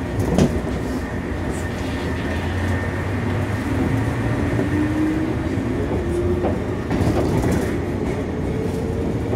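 Inside a JR 115-series electric train motor car pulling away from a station: the MT54 traction motors hum, their whine rising in pitch as the train gathers speed, with a thump about half a second in.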